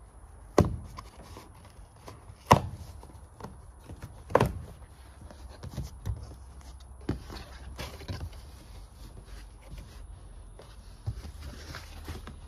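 Hands working at a large cardboard box to open it: three sharp knocks or slaps on the cardboard in the first half, the loudest about two and a half seconds in, then lighter taps with scraping and rustling of the flaps.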